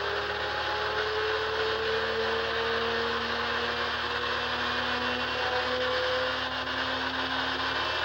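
Inertia starter of a PZL M-18 Dromader's nine-cylinder radial engine spinning up before start: a whine that rises slowly and steadily in pitch, over a steady mechanical rush.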